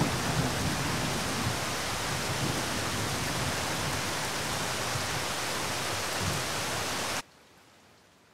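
Steady heavy rain with a low thunder rumble underneath, cutting off abruptly about seven seconds in.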